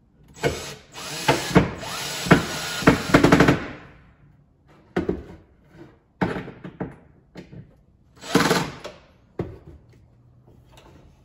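Cordless drill driving a short stubby screw through a metal IKEA drawer slide into the cabinet side, running about three seconds. A few knocks follow, then a second brief drill burst a little before the end.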